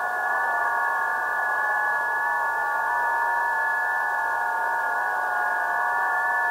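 Shortwave receiver audio from the 20 m amateur band: several steady data-mode tones at different pitches sounding together over radio hiss, the FT8 signals near 14.074 MHz.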